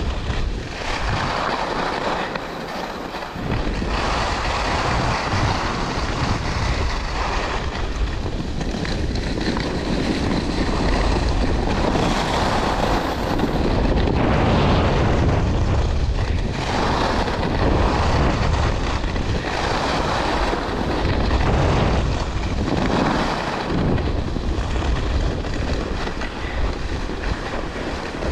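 Skis hissing and scraping over groomed snow on a downhill run, with wind rushing over the microphone. The scraping swells and fades every couple of seconds as the skier turns.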